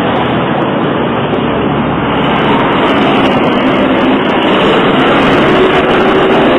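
Loud, steady city street traffic noise: engines and tyres of passing buses and cars, getting a little louder around the middle as a bus goes by close.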